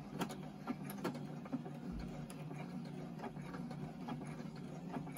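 Domestic electric sewing machine with an embroidery foot, stitching freehand embroidery: a steady motor hum with light, irregular ticking.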